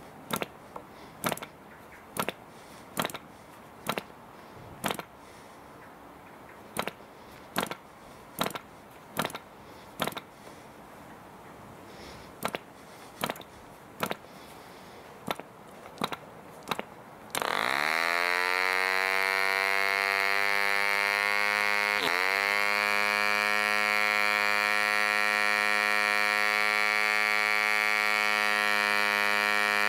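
1948 ED 2cc Competition Special model diesel engine, with a 10x6 propeller, being hand-flicked to start: a sharp click or pop with each flick, about one a second. Some 17 seconds in it catches and runs at a steady high buzz, dipping in speed briefly twice while its compression and needle settings are being found.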